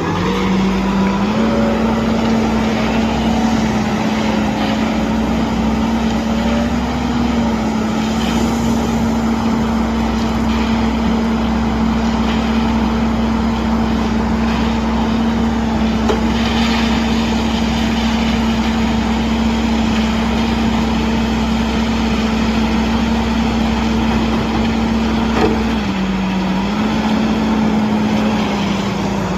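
Heavy diesel engine of an Ajax Fiori Argo 4300 self-loading concrete mixer running steadily at high revs. The pitch rises slightly about a second in, then dips briefly and picks back up near the end as the load or throttle changes.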